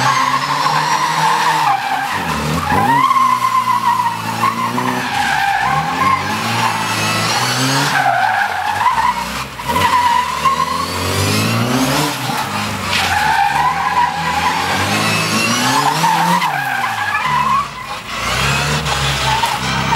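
The super-modified 1460cc Mini Special's engine revving up and dropping back again and again as it is driven flat out between tight turns, with the tyres squealing and skidding through each turn.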